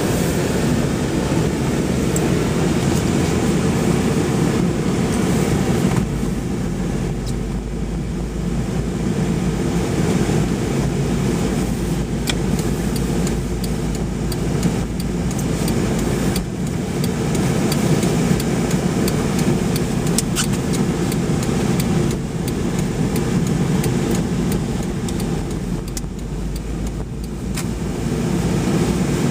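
A car driving slowly, heard from inside the cabin: a steady rumble of engine and tyres rolling over snow-covered streets.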